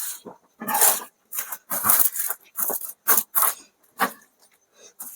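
Close-miked, hurried eating: a run of short, irregular chewing, smacking and gulping mouth noises with heavy breaths between them, about eight or nine in all.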